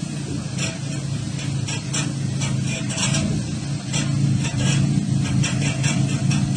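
Small van's engine running with a steady low hum, with irregular short crackles on top.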